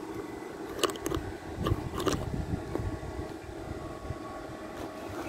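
Steady low mechanical hum holding several constant tones, like a running engine or machine, with a few short clicks in the first two seconds.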